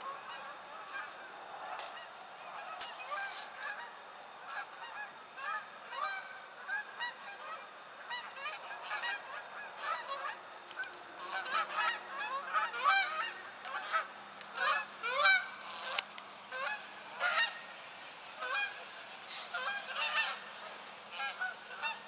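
A flock of geese flying over, honking: many short overlapping calls, growing louder toward the middle and thinning out near the end.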